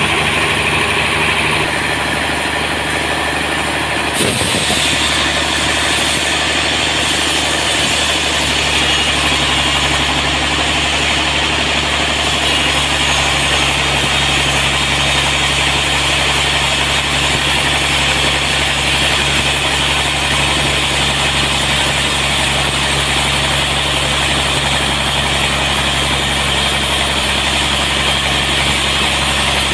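Sawmill running steadily: an engine hum under a constant hiss. There is a brief knock about four seconds in, after which the high hiss grows stronger.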